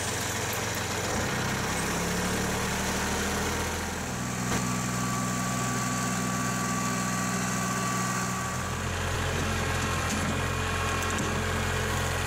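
Kubota compact tractor's diesel engine running steadily, its tone shifting a little about four seconds in and again about eight seconds in.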